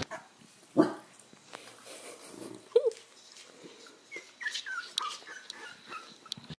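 Newborn corgi puppies squeaking and whimpering in short, high calls, several in quick succession about four to five seconds in. A sharp thump comes near the start.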